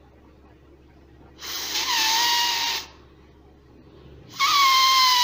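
Folded paper strip held between the fingers and blown through like a reed, giving a high buzzing tone with the hiss of breath, twice: the first about a second and a half long, the second starting near the end and sliding slightly lower in pitch. The buzz comes from the blown air setting the paper flaps vibrating, the same way air sets the vocal cords vibrating.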